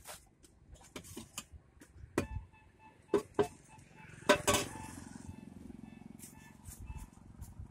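Steel utensils on a street-food cart clinking and knocking: a ladle striking a steel pot and bowls set down on a steel tray, several sharp knocks. A low steady rumble sets in about halfway through.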